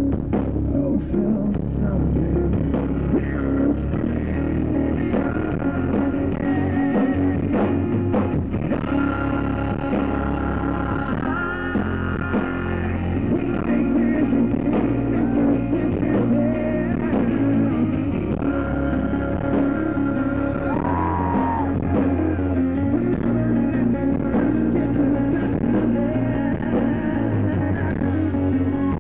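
Live rock song: a man singing lead over a strummed acoustic guitar, with a band playing along.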